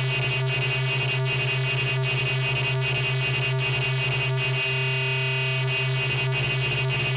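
DIY Atari Glitch Eurorack wavetable VCO (Arduino and Mozzi) playing a sound-design patch: a steady buzzy, glitchy electronic drone with a faint regular pulse about two or three times a second.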